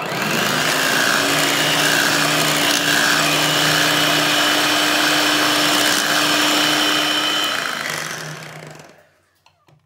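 Electric hand mixer beating whipped cream and chocolate custard: it starts at once, runs steadily with a hum and a whine, then slows and stops near the end.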